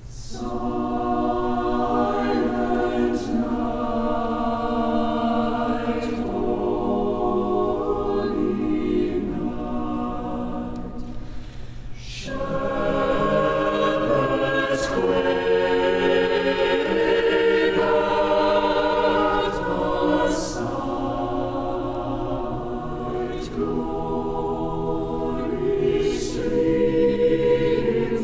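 Chamber choir singing a Baroque choral piece in sustained chords, with crisp consonants cutting through. The sound eases about twelve seconds in, then the choir comes back fuller.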